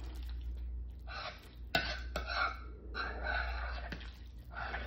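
A utensil stirring a creamy chicken salad in a glass bowl: four short wet mixing scrapes, with a few sharp clicks of the utensil against the glass. A low steady hum runs underneath.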